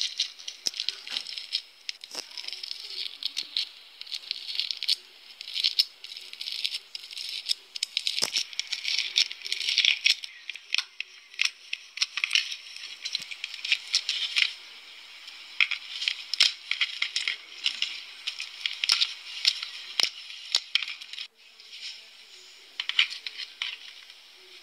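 Slime being squeezed, pressed and poked by hand, making a dense run of small crackles, clicks and pops from foam beads and trapped air bubbles. About three-quarters through it suddenly goes quieter, then crackles briefly again.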